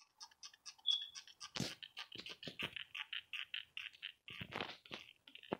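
Fidget spinner spinning on a plastic placemat, giving a faint scratchy rattle that pulses about four or five times a second, with a few sharper knocks among it.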